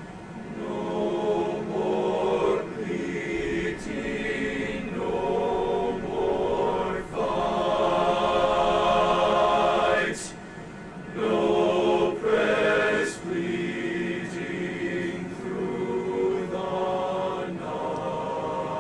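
Slow, solemn ceremonial music of long held chords in phrases, pausing briefly between them.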